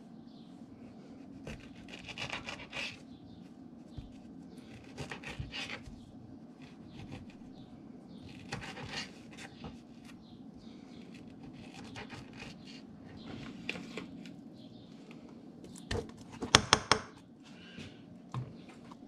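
Paring knife cutting a stone fruit and strawberries on a plastic cutting board: short scraping, slicing strokes every second or two over a steady low hum. A quick run of sharp clicks near the end is the loudest sound.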